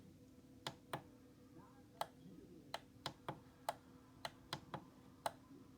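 About a dozen sharp plastic button clicks at uneven intervals, pressed one after another to step a digital clock radio's time-zone setting, over a faint steady electrical hum.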